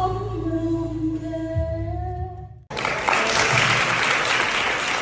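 A singer holds a long note over backing music, which stops abruptly about two and a half seconds in; the audience then breaks into applause.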